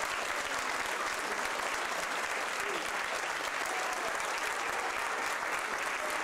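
Audience applauding steadily, with a few voices faintly heard under the clapping.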